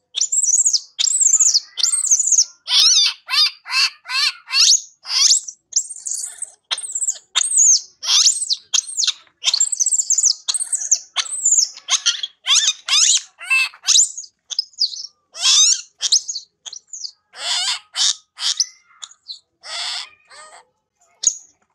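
Baby macaque screaming and crying: a rapid run of short, shrill, wavering cries, about two a second, thinning out near the end. These are the distress cries of an infant calling for its mother.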